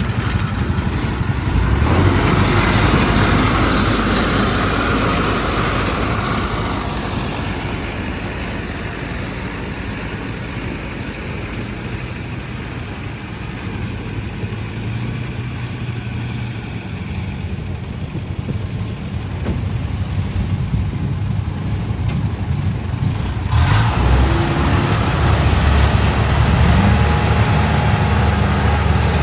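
Engine of a heavy farm machine in a muddy rice field running steadily, louder over the first few seconds and again from about three-quarters of the way through.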